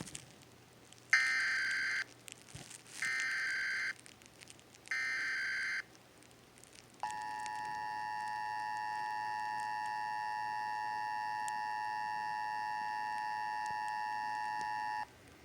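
Emergency Alert System broadcast of a Required Monthly Test: three short bursts of SAME digital header data tones, each about a second long, then after a short gap the steady EAS two-tone attention signal held for about eight seconds before it cuts off.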